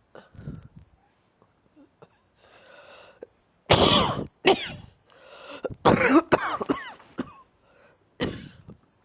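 A person coughing with bronchitis that is clearing up: a run of short, loud coughs in two or three bouts, starting about four seconds in, with breaths drawn between them.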